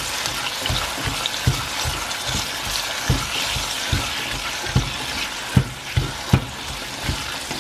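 Diced apple frying in coconut oil in a stainless steel saucepan, sizzling steadily as a spatula stirs it. The spatula knocks softly against the pan about twice a second, with a few louder knocks near the end.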